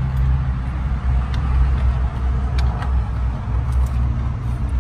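A vehicle engine running at a steady idle, a continuous low hum. A few faint clicks come from wiring and plugs being handled.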